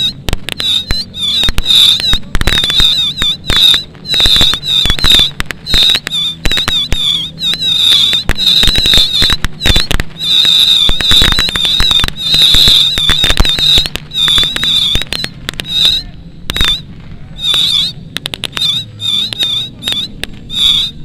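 Rapid, irregular strings of firecracker-style bangs from mock-battle pyrotechnics, with a high warbling whistle over them, thinning to scattered bangs in the last few seconds. Model aircraft engines drone faintly underneath.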